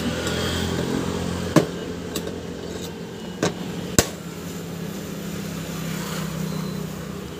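Screwdriver clicking and knocking against the metal seat lock of a Suzuki Access 125 scooter, forcing the latch open by hand because its release cable is cut. There are a few sharp clicks, and the seat latch lets go partway through. A steady low hum runs underneath.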